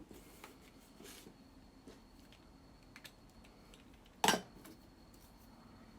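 Craft supplies being set down and moved about on a tabletop during tidying: scattered light clicks and taps, with one louder knock a little past four seconds in.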